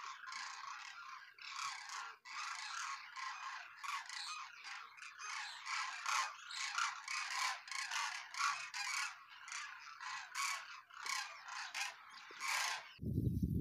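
A large flock of cranes flying overhead, many birds calling at once in a continuous chorus of overlapping calls, several a second. Near the end the calls stop and a louder low sound cuts in.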